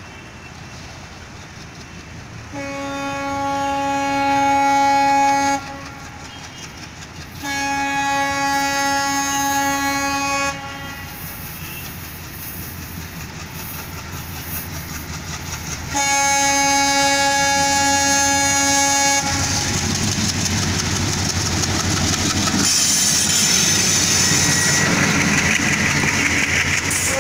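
WDG3A ALCO diesel locomotive sounding its horn in three long blasts of about three seconds each as it approaches, getting louder. Then its 16-cylinder diesel engine goes by close, and the coaches follow with wheels clattering over the rail joints.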